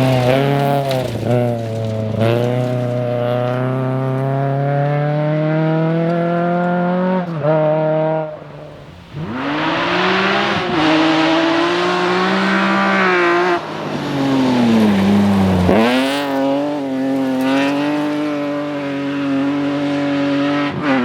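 Rally car engine at full throttle, pitch climbing and breaking at each gear change, with a brief lull about eight seconds in; later the note falls as the car slows, then climbs again under acceleration.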